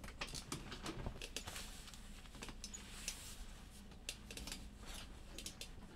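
Scattered light clicks and taps at an uneven pace, over a faint steady low hum.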